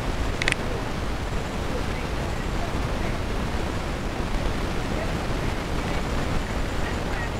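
Steady rushing background noise with one brief high-pitched chirp about half a second in.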